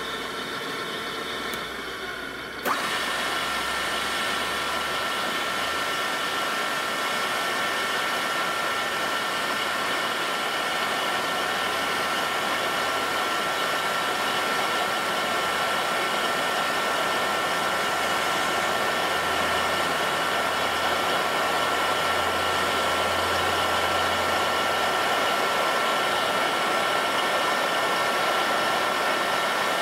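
Breda R1880MP radial drill running, its motor and gearbox making a steady whir. About three seconds in the sound steps up suddenly to a louder whir with a steady high whine, as the spindle drive is switched in.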